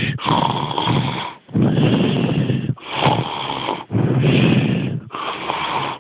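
A person making snoring sounds, a run of about five noisy snoring breaths of roughly a second each, each cut off sharply before the next.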